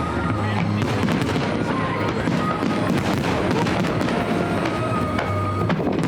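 Fireworks crackling in quick, dense succession, with music playing along.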